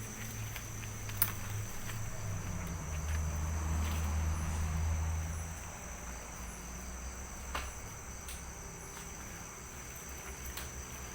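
Insects trilling steadily in a high, unbroken tone, with a low rumble that swells for a few seconds in the middle and a few faint clicks.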